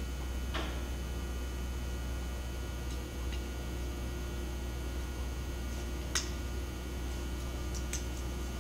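Steady low electrical hum, with a few faint clicks and taps as an aluminium hanging clip and a thin wood shim are handled; the sharpest click comes about six seconds in.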